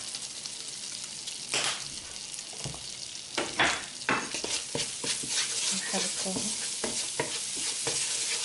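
Chopped herbs and ground spices sizzling in melted butter in a non-stick frying pan, with sharp crackles popping through the steady hiss. In the second half a wooden spoon stirs and scrapes them around the pan.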